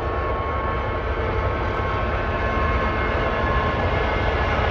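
Ludmilla-class diesel locomotive running as it hauls a freight train of open wagons: a steady deep rumble with a high whine on top, growing a little louder near the end.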